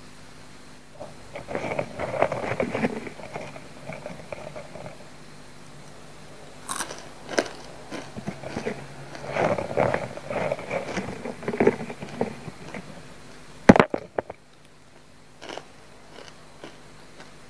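Crunchy coated nut snack being chewed in two long bouts of crisp crunching a few seconds apart. A single sharp click near the end is the loudest sound.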